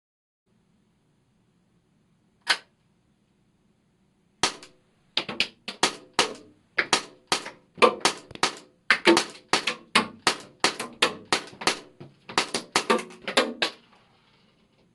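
Tanaka P226 MK25 cap-firing model gun shooting: one single shot, then a long fast string of shots at about three a second, each a sharp crack with a brief metallic ring as the slide cycles.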